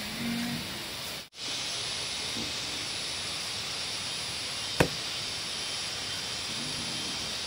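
A steady hiss with a single sharp click near the middle; the sound cuts out for an instant about a second in.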